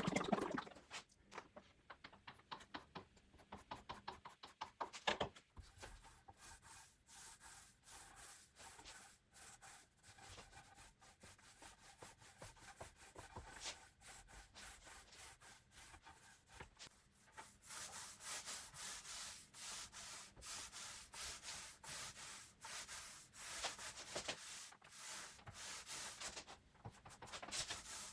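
Quiet back-and-forth rubbing strokes on pine boards by hand, quick and evenly spaced at first, then denser and steadier in the second half.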